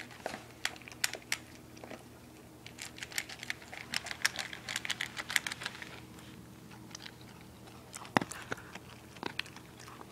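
Dog eating dry kibble from a stainless steel bowl: quick runs of crunching and clicking, densest a few seconds in, with short lulls around two seconds and again after about six seconds.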